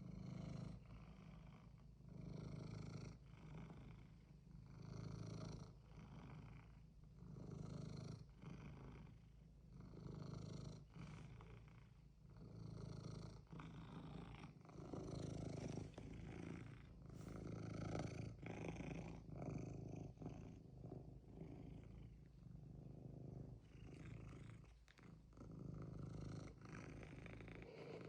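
Ragdoll cat purring steadily, in swells that rise and fall about every two to three seconds.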